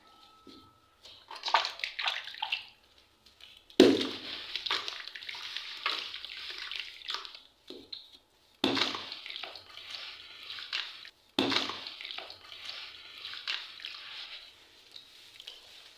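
Soaked gritty blocks crushed and crumbled by hand in a basin of water: sloshing, splashing and gritty crumbling, with three sharper splashing crunches about four, nine and eleven and a half seconds in.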